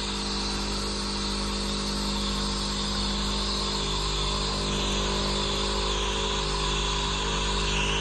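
Automatic coffee machine brewing coffee and frothing milk at once, its two motors running together: a steady hum with a hiss over it.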